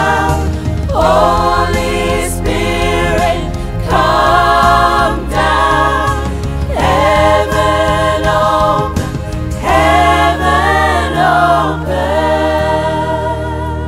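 Gospel choir of women's voices singing a worship song together over a backing track with a steady bass line. The voices sing in phrases of about two seconds with short breaks between them.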